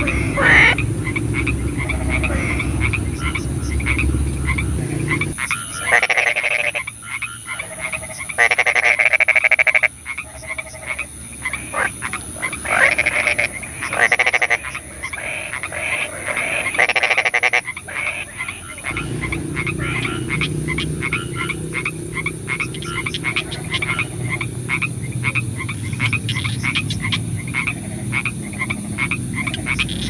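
Chorus of frogs croaking: many short calls repeating rapidly, with several louder, longer croaks standing out between about six and eighteen seconds in. A low rumble runs underneath before and after that stretch.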